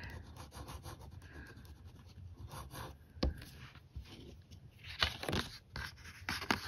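Fine-tip pen scratching faintly on a paper tile as a signature is finished. Then the card tile is handled and flipped over on a wooden table: a light click, a brief rustle and rub of card on wood, and another click near the end.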